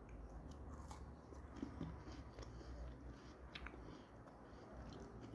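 Faint chewing of a water-dunked chocolate-chip biscuit, with a few soft clicks and ticks scattered through.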